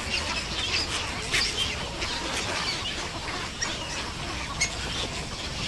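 Heron and egret nesting colony calling: many overlapping short calls from the young birds and adults. A few sharp clicks stand out, about one and a half seconds in and again near the end.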